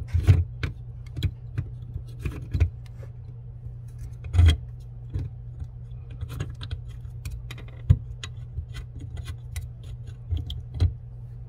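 Irregular small metallic clicks and light scrapes of hands fitting a supply-line part onto a chrome under-sink angle-stop shut-off valve, over a steady low hum.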